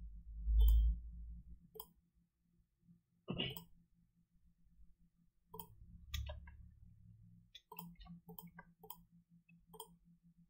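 Computer mouse clicking, about a dozen single clicks at irregular intervals, most in the second half, over a faint steady low hum. One louder short noise comes about three and a half seconds in.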